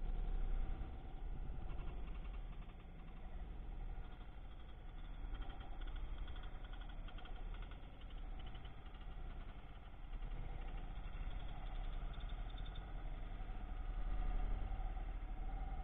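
Motorcycle engine running at low speed as the bike rides through a flooded, muddy dirt track, its level swelling slightly now and then.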